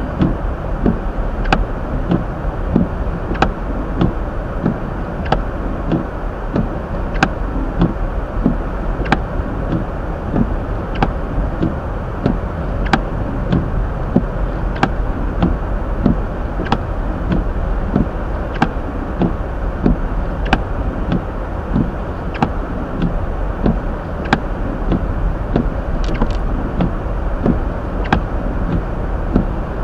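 Hyundai Elantra driving on wet, snowy roads, heard from inside the cabin: steady road and engine noise. Windshield wipers knock at the end of each sweep, about once a second.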